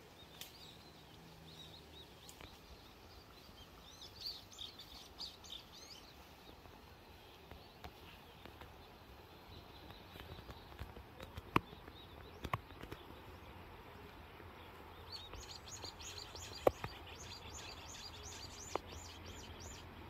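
Small songbirds singing quick runs of repeated high notes, once about four seconds in and again from about fifteen seconds on, over a faint steady outdoor hiss. A few sharp clicks come through in the middle and near the end.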